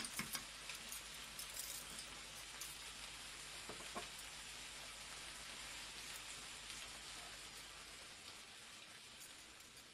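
Food sizzling in a frying pan, a steady hiss with scattered crackles and a few sharp pops, slowly dying away toward the end.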